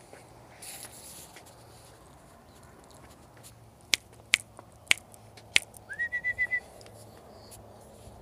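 A person snapping their fingers four times, about half a second apart, then whistling a short rising note that breaks into a quick five-note trill, calls to catch a bulldog puppy's attention.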